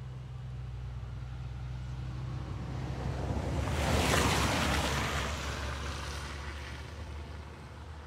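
Wet dirt-road ambience: a vehicle passes by, tyres hissing on the wet surface. The hiss swells to a peak about four seconds in and fades away, over a steady low hum.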